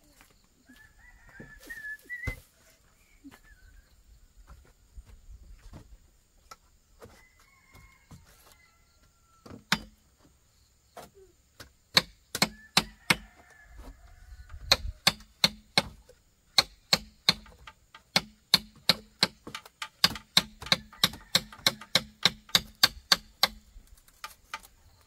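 Steady chopping blows on wood or bamboo, sharp knocks about two to three a second, starting about ten seconds in. Before that, faint bird chirps.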